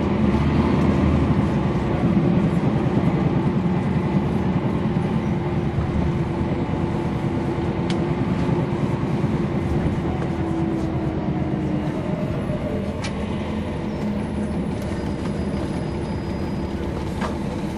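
Cummins ISL9 inline-six diesel of a 2011 NABI 40-foot transit bus heard from on board, running steadily as the bus drives. A tone in the engine drone climbs slowly and fades away about twelve seconds in.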